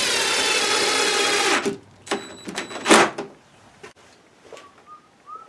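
Cordless drill running steadily for about a second and a half as it drives a screw into a metal hasp latch on a wooden box. Then a few clicks and one sharp knock just before the three-second mark, and faint small clicks after.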